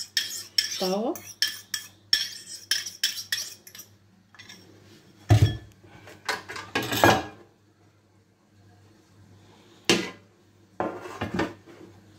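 A metal spoon clinks and scrapes rapidly against a bowl and a metal baking tray as tomato sauce is scraped out and spread, for the first few seconds. Then come a few heavier thuds, a single knock and a short clatter as the baking tray and dishes are handled.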